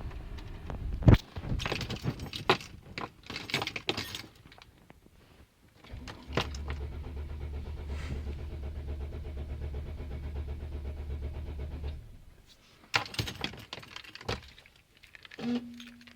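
Keys jangling and clicking at the ignition, then the Mercedes Sprinter's diesel engine cranking steadily for about six seconds without catching before the starter is released; this is a hard-starting diesel. More clicks follow, and a short steady tone sounds near the end.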